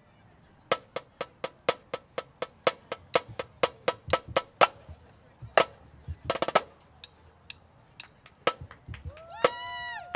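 Marching band drumline playing sharp clicks in a steady beat, about four a second, with a brief rapid flurry about halfway through. Scattered taps follow, and near the end a held pitched note slides up and then holds.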